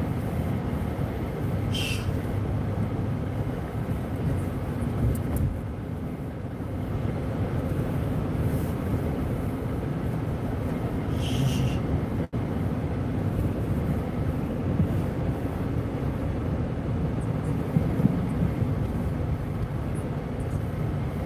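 Steady low rumble of a car driving on a slushy, snow-covered road, heard from inside the cabin. There are two short higher-pitched sounds, about 2 and 11 seconds in.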